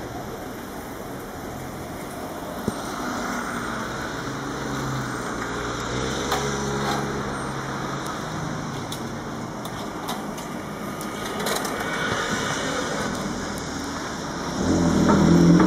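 A motor vehicle passing on a street, getting louder near the end.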